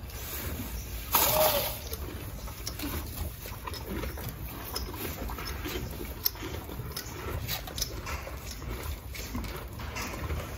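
Quiet handling sounds of a horse's boot being fitted: the hook-and-loop straps of the boot being pressed and fastened, with small clicks and rustles. About a second in comes one louder rush of noise lasting under a second.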